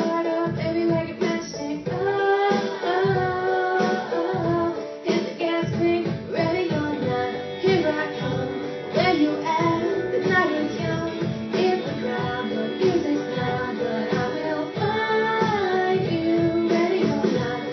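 A live song: a solo voice singing a melody over strummed acoustic guitar.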